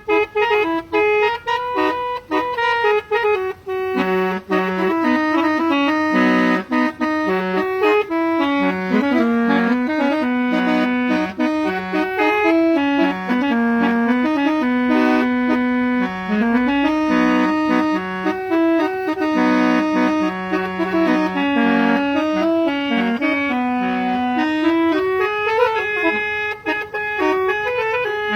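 Telolet horn, a set of tuned air horns, playing a long tune note by note, with some notes held and others short and repeated.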